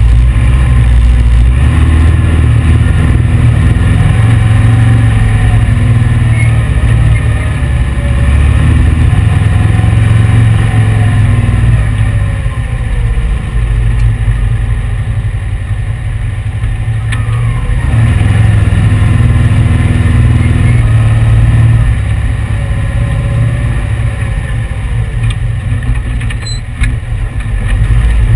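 Dune buggy's 1835 cc air-cooled VW flat-four engine running under throttle, its revs rising and falling as the car drives over the dunes. The throttle eases off a little about halfway through and again near the end.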